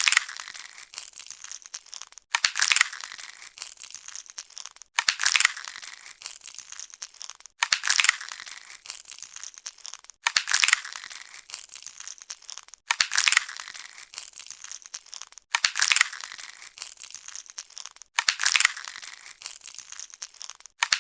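Sci-fi alien egg smashing sound effect: a sharp, sudden crush followed by a crackling tail, repeated about every two and a half seconds, eight times.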